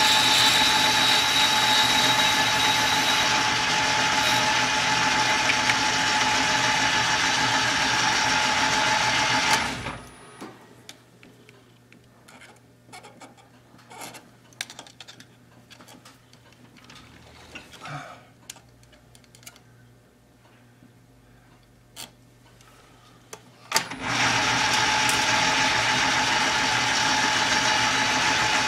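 A small metal lathe runs steadily while boring out a brass wheel blank, then is switched off about ten seconds in. A quiet stretch follows with scattered light clicks and taps as the part is measured by hand. The lathe starts up again about four seconds before the end and runs steadily.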